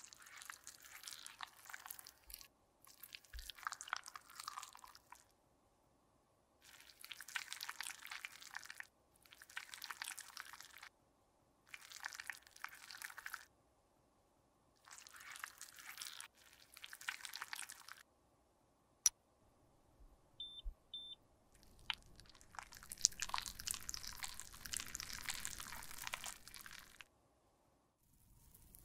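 Thin metal blade scraping soft lipstick off the bullet in repeated strokes, each a second or two of gritty scraping with short pauses between. About two-thirds through come a sharp click and two short high beeps, then a longer spell of crunchy scraping.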